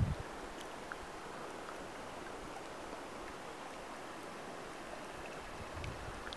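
Faint, steady outdoor hiss with a few light ticks. Wind starts to buffet the microphone near the end.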